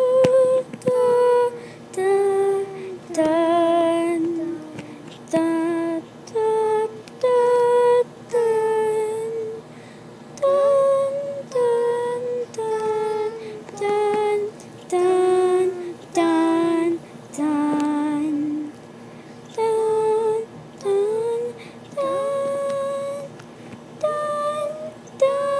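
A female voice singing a wordless tune on syllables like "dun", one note at a time with short gaps, some notes held with a wavering pitch and some sliding up into the note.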